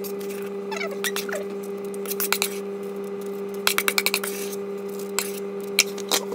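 Metal spoon scraping and clinking against a plastic bowl as mushroom-and-onion filling is scooped out, with a quick run of about six taps a little past the middle. A steady low hum runs underneath.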